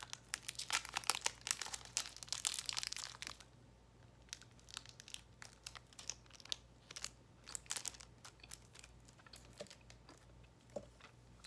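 An Airheads taffy bar's wrapper crinkling and tearing as it is peeled open, dense for about the first three seconds, then scattered crinkles and soft mouth sounds as the taffy is chewed.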